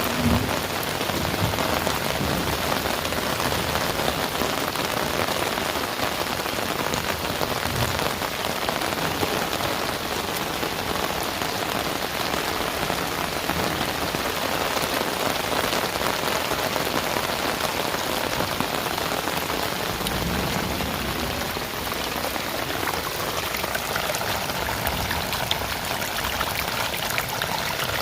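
Heavy rain falling steadily, a dense even downpour without a break.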